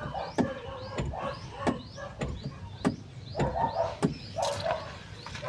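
A series of sharp knocks, about one every half second or so, with birds chirping in the background.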